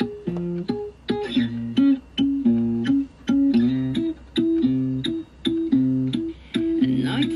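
Music: a plucked guitar riff repeating over a steady ticking beat.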